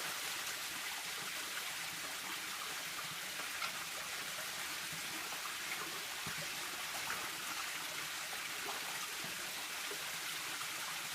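Steady rush of a small waterfall splashing down a canyon rock wall, with a few faint ticks.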